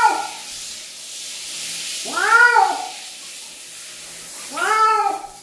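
A wet cat yowling while being bathed: three long meows about two and a half seconds apart, each rising then falling in pitch, over the steady hiss of a handheld shower head spraying water.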